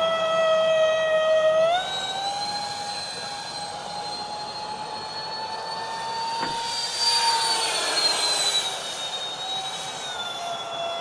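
Twin electric ducted fans of a Freewing Su-35S model jet in flight, a high whine with overtones. The pitch steps up about two seconds in, then creeps higher as the sound swells with a rushing pass around seven to eight seconds in, and falls away after it.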